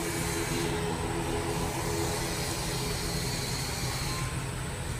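Jet airliner's engines at take-off thrust as it climbs away after lift-off: a steady noise with a low drone.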